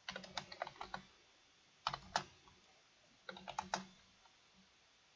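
Typing on a computer keyboard in three short bursts of keystrokes, with two louder key clicks about two seconds in.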